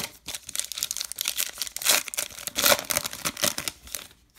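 A baseball card pack's wrapper being torn open and crinkled: a quick run of crackling tears, loudest about two seconds in and again near three seconds.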